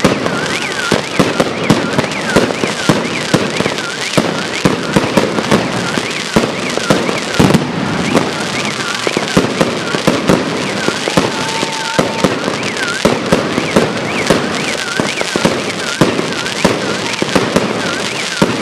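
Aerial fireworks display: shells bursting and crackling in a dense, unbroken barrage of bangs, several a second.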